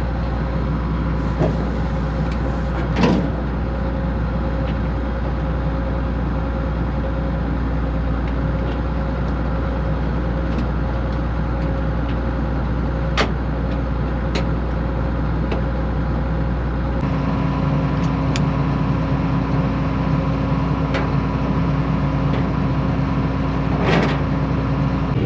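Heavy farm vehicle engine running steadily with a constant drone and whine, a few sharp clicks over it. The engine sound changes abruptly about 17 seconds in.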